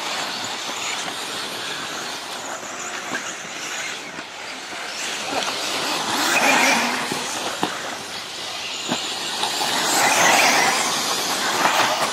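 Electric 1/10-scale four-wheel-drive RC offroad buggies racing on a dirt track: a high whine of motors and gears mixed with tyre noise. It swells loudest as a buggy passes close about six seconds in and again around ten seconds in.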